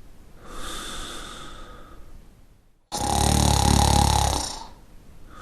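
A person snoring. A soft, airy breath with a faint whistle comes first, then a loud, low, rough snore about three seconds in, and another soft breath starts near the end.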